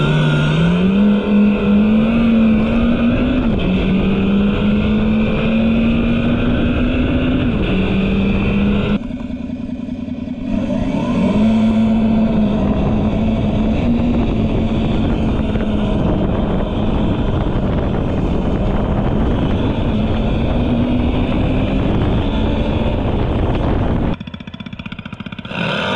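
Segway GoKart Pro 2's engine-sound speaker playing a simulated engine note whose pitch steps up and down with the throttle. The sound drops back briefly about nine seconds in, and again near the end.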